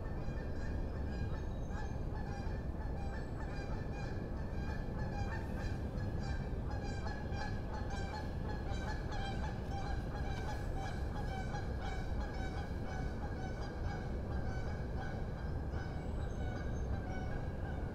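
Geese honking, with many small birds chirping in a dense, continuous chorus over a steady low rumble.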